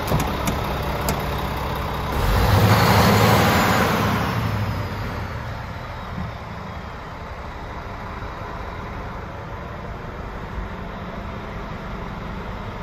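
Scania R490 tractor unit's diesel engine idling steadily. A few sharp clicks come at the start. A loud rushing noise swells about two seconds in and fades over the next few seconds, after which the idle is quieter.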